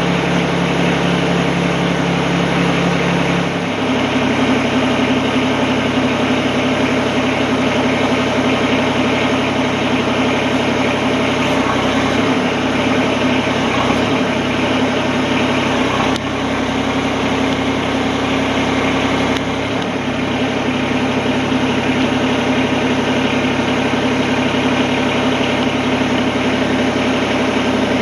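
Compact tractor's diesel engine running steadily. Its note drops about four seconds in and shifts several more times after that.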